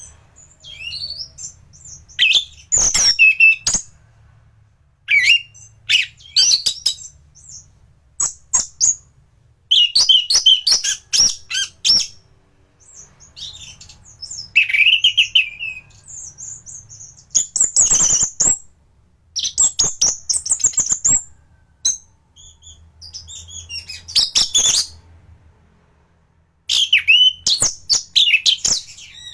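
Orange-headed thrush (anis merah) singing in bursts of fast, varied high whistles and chattering notes, with short pauses between phrases.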